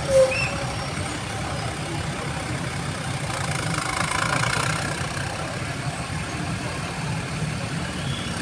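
Large tour bus engine idling with a steady low rumble, a short loud blip just after the start and a swell of noise about four seconds in.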